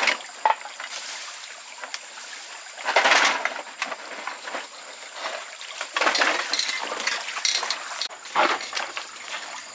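Water splashing and sloshing in irregular bursts, with a sharp click about half a second in.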